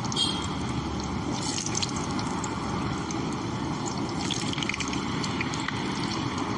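Potato pieces deep-frying in hot oil: a steady sizzle with small scattered crackles.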